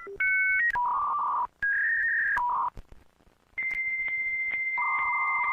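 Electronic telephone-style tones. Short dual-tone keypad beeps are followed by warbling two-note trills, then a quiet gap about halfway through. After the gap a steady high beep sounds, joined by another warbling trill.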